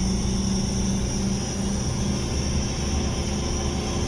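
Mercedes-Benz truck's diesel engine running with a steady low hum, heard from inside the cab.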